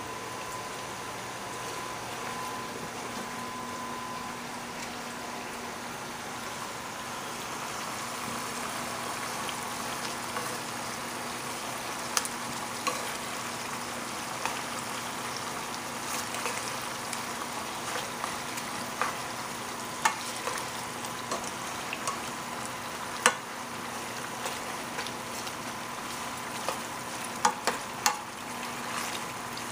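Chicken pieces frying in oil and nihari masala in an open pan, with a steady sizzle. Tongs click against the pan now and then as the pieces are turned, most sharply about two-thirds of the way through.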